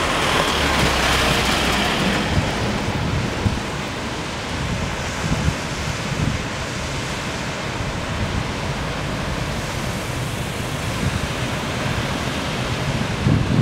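Steady wash of breaking ocean surf, swelling louder in the first two seconds, with gusts of wind buffeting the microphone.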